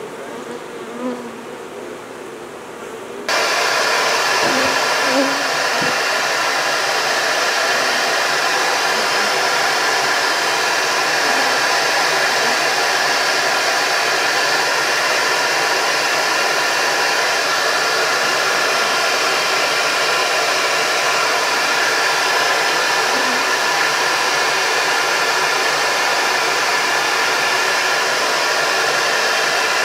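Honeybees buzzing, then about three seconds in a bee vacuum's motor switches on suddenly and runs steadily at a loud, even pitch over the bees.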